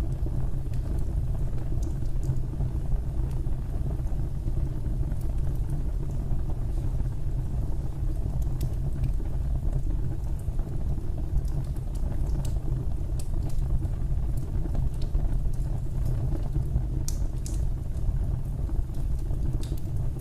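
Fireplace fire burning: a steady low rumble with small crackles and pops scattered through it, and a few sharper pops near the end.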